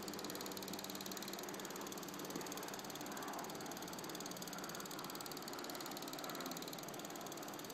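A steady low mechanical hum under a constant hiss, with no distinct events.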